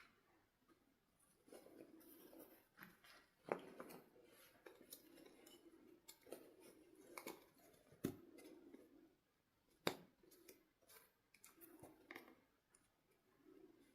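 Faint scissors snipping and rustling, with a few sharp clicks, the loudest about three and a half, eight and ten seconds in.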